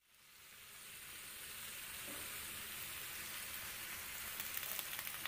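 Carne asada, onions and jalapeños sizzling on a countertop griddle: a steady hiss that fades in over the first second, with a few faint crackles near the end.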